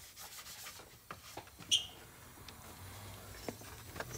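Aerosol brake cleaner sprayed onto the engine to clean off oil residue around the oil filter housing: faint hissing, with one short spray burst about two seconds in and a few light clicks from handling the can.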